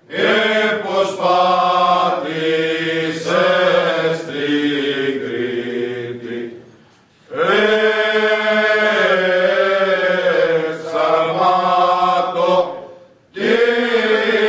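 A group of Cretan men singing unaccompanied in unison, a traditional rizitiko-style song, in long held phrases; the singing breaks off briefly about halfway through and again near the end before the next phrase.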